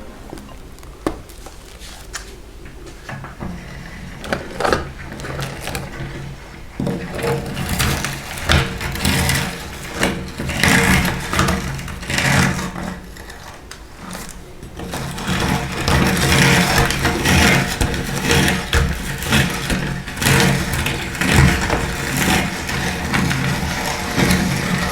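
Electric meat grinder running with a steady motor hum while crunching dry food being fed through it. The irregular cracking and crunching gets louder partway through and louder again after about fifteen seconds.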